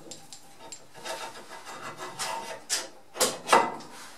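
Hardened steel front axle pivot pin being slid down through its new bushes in the cast axle housing, metal rubbing and scraping. Three short, louder scrapes come near the end.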